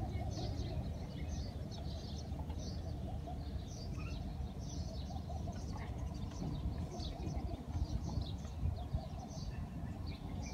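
Small birds chirping and twittering in garden trees, many short high calls scattered throughout, over a steady low rumble.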